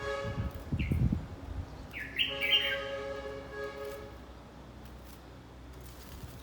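Red-whiskered bulbul giving short sharp call notes, once about a second in and again in a quick cluster about two seconds in. Under them runs a steady horn-like tone with many overtones that fades out about four seconds in, and low thumps come in the first second and a half.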